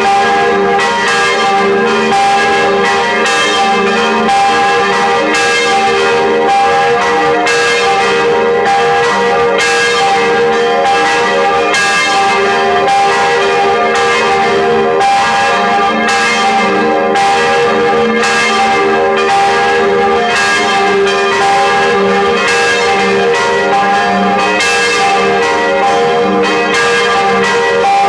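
Several church bells pealing together, a continuous run of overlapping strokes whose tones ring on into one another.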